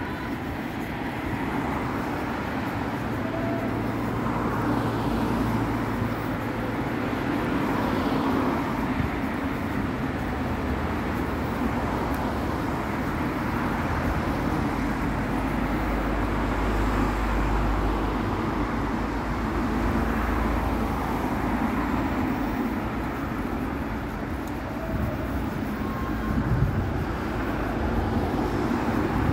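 Road traffic: cars driving past on a main road in a steady stream, with a deeper rumble for a few seconds in the middle.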